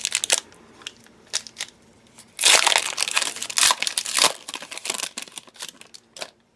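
Trading card pack wrapper being crinkled and torn open by hand. The loudest stretch is a dense burst of crinkling from about two and a half seconds in to just past four seconds, followed by lighter rustles and clicks as the cards are handled.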